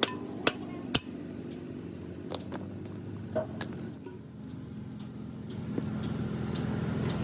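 Three sharp metal strikes about half a second apart, then a few lighter metallic clinks. From about five seconds in, a steady engine hum builds.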